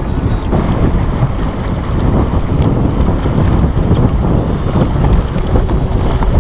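Heavy wind buffeting the microphone over water rushing and splashing along the hull of a small sailboat under sail.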